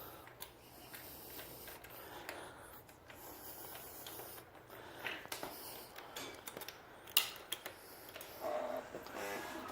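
Faint scattered clicks and taps of handling, with one sharper click about seven seconds in and a faint hum near the end.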